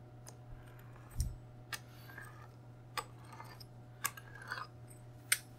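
Pizza cutter wheel clicking against a floured stone countertop while slicing rolled dough into squares: several short, sharp clicks at irregular spacing, roughly one a second, with a duller thump about a second in.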